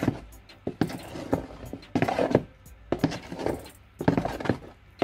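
Wooden spoon folding thick fruit-cake batter in a bowl, in repeated strokes about once a second, with sharp clicks of the spoon against the bowl.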